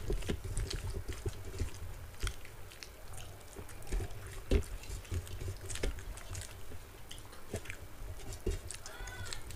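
Close-up eating sounds: chewing and mouth smacks from people eating rice and vegetables by hand, mixed with fingers scraping and tapping on steel thali plates. Irregular short clicks throughout, the strongest about halfway through.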